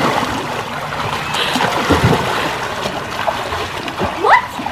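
Two children swimming a race in a pool, their arms and kicks splashing the water steadily. The splashing is loudest at first and eases off. A short rising voice call sounds near the end.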